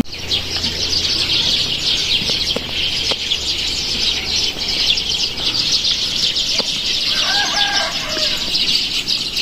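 Birds chirping in a dense, continuous high chorus, with a short lower call about seven seconds in.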